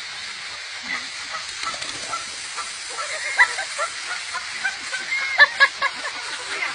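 Canada goose honking aggressively in short, repeated calls. The calls come more often and louder after about three seconds, with the loudest honks near the end.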